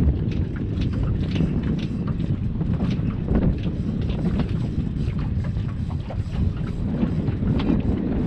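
Wind buffeting the microphone aboard a small fishing boat on open water: a steady low rumble with scattered short crackles.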